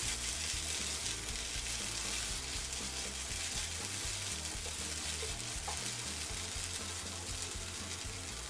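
Bombay duck dry-fish curry with potato and pointed gourd sizzling steadily in a nonstick frying pan as it is stirred with a silicone spatula. Its liquid has cooked down, so it is dry-frying at the final stage.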